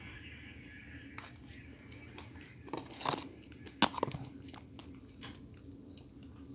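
Someone eating strawberry shortcake: quiet chewing with scattered soft clicks and taps, a cluster of them about three to four seconds in.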